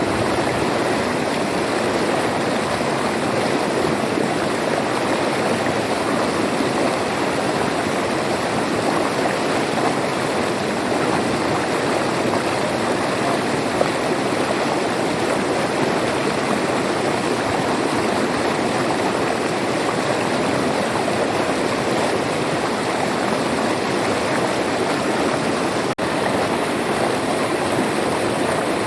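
River water flowing, a steady even rush with no let-up, broken only by a split-second dropout near the end.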